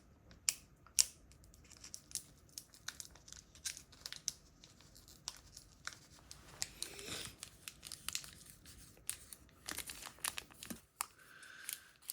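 Pokémon card pack packaging being handled, crinkled and torn open by hand: scattered sharp crackles and a few louder clicks, with denser stretches of crinkling partway through.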